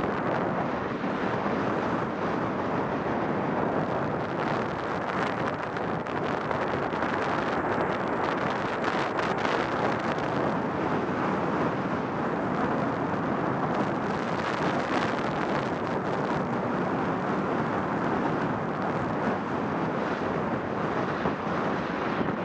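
Skiing downhill at speed: steady rushing wind on the camera microphone, mixed with the hiss and scrape of skis on packed snow.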